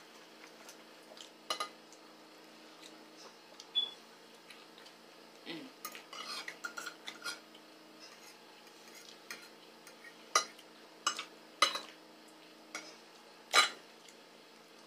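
Forks clinking and scraping against plates and bowls: single sharp clicks a second or two apart, with a busier patch of small clatter in the middle.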